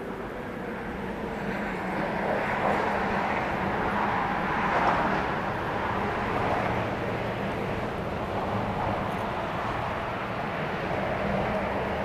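Steady rushing of road traffic, a hiss that grows a little louder about two seconds in and swells gently as vehicles pass.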